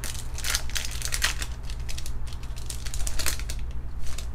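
Foil wrapper of a Pokémon booster pack crinkling and crackling as it is pulled open and the cards slide out: a quick run of sharp crackles that thins out about three and a half seconds in, over a low steady hum.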